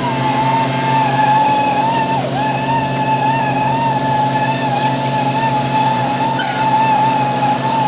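A machine running with a steady high whine that wavers slightly in pitch, over a low engine hum.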